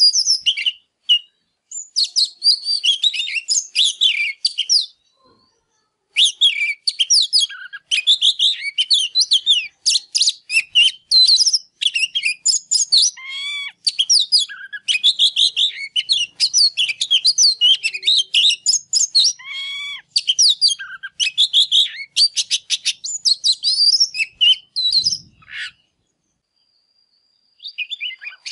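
Male oriental magpie-robin singing a loud, rapid, varied song of whistles and chattering notes in fast runs. It breaks off in short pauses and once for about two seconds near the end.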